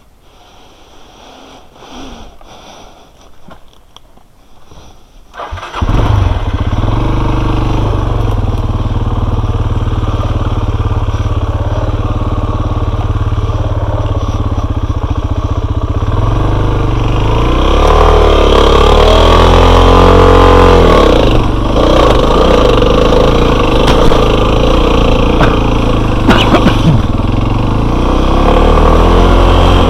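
Enduro motorcycle engine starts up about six seconds in after a quiet stretch, then runs steadily. It revs up and back down a little past halfway, then settles again.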